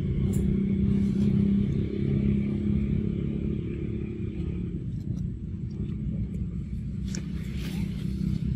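Steady low hum of an engine running, with a few faint clicks and a brief rustle near the end.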